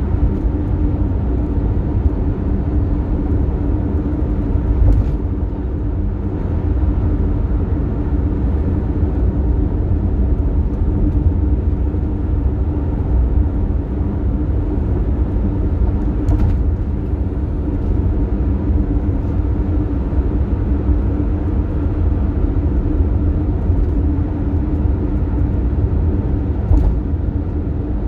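Toyota Tercel at highway speed: a steady low road-and-engine rumble with a steady hum over it, the abnormal noise that the car makes while cruising on the highway.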